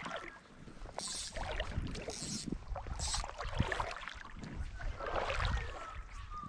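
Shallow river water swishing and splashing around an angler's legs as he wades, with a few splashing strokes about a second apart over a low rumble.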